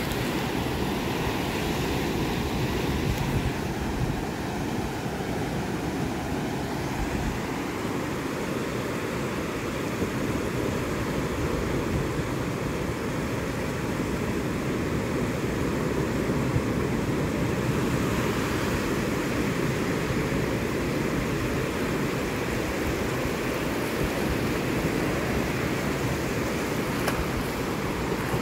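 Ocean surf breaking and washing up a sandy beach in a steady, unbroken wash, with a low rumble of wind on the microphone.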